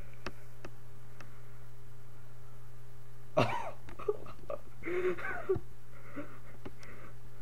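A man's wordless vocal outburst: one sudden cough-like burst about three and a half seconds in, then a couple of seconds of short strained vocal sounds, all over a steady low electrical hum.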